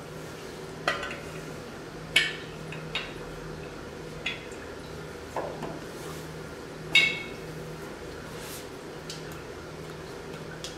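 Large glass demijohn (tobin) knocking against a stainless steel tank tap as it is set in place, about six sharp clinks with a brief ring, the loudest about two and seven seconds in. A steady low hum underneath.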